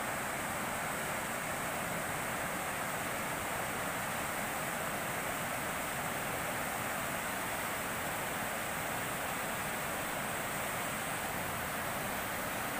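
Fast-flowing river water pouring over a concrete weir into rapids: a steady, unbroken rush.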